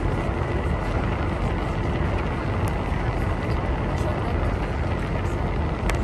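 Sightseeing cruise boat under way: a steady low engine rumble with an even wash of noise over it.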